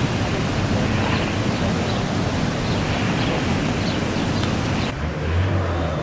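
Steady rushing of falling water from the Manavgat Waterfall. About five seconds in it drops sharply and a low hum takes over.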